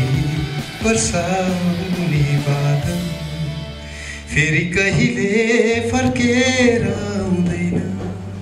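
A man singing a song through a microphone over instrumental backing with sustained low bass notes; about halfway through he holds a long, wavering note.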